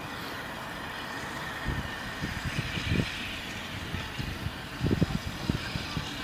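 Steady outdoor hum of road traffic on the adjacent road. Irregular low rumbles and thumps set in about two seconds in.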